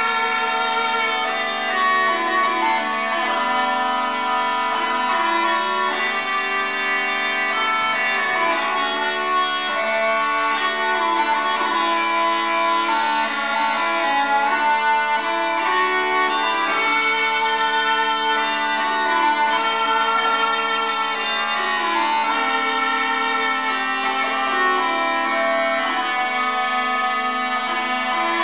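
Two sets of Scottish bellows-blown bagpipes playing a tune in duet: a steady drone under a lively melody on the chanters, without a break.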